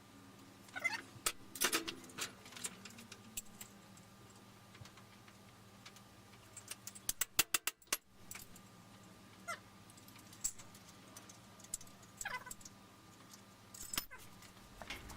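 Small metal parts and tools handled on a workbench: scattered clicks and clinks, with a quick run of clicks about seven to eight seconds in and a few short, falling squeaks, over a faint steady hum.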